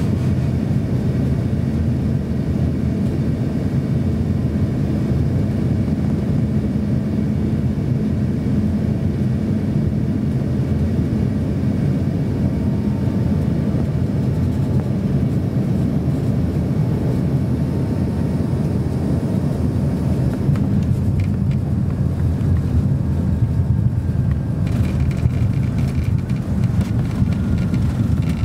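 Cabin noise inside an Embraer E145 regional jet on final approach and landing: a steady rumble of engines and rushing air. About twenty seconds in, knocks and rattles come through as the wheels touch down and the jet rolls along the runway.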